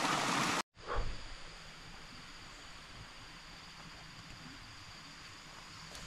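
Rushing stream water that cuts off abruptly under a second in. Then a soft thump and a quieter outdoor background with a steady high-pitched insect drone.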